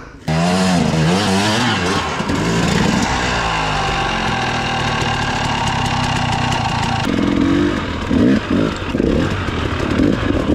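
Dirt bike engine revving up and down, its pitch rising and falling again and again. It starts suddenly just after the start and changes character about seven seconds in.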